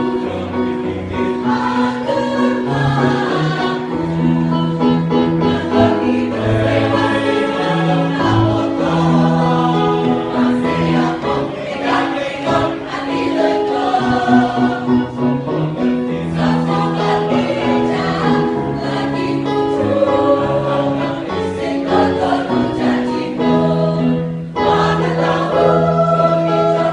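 Mixed choir singing in harmony with instrumental accompaniment, sustained low notes under moving upper voices.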